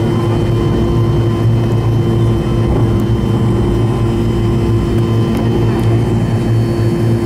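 ATR 42-300's twin turboprop engines heard from inside the cabin as the aircraft taxis: a loud, steady propeller drone with a low hum and a faint high whine, unchanging throughout.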